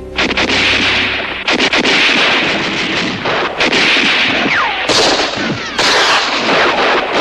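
Rapid, overlapping rifle gunfire in a 1960s TV war-drama battle, shot after shot with hardly a break, and a falling whine about four and a half seconds in.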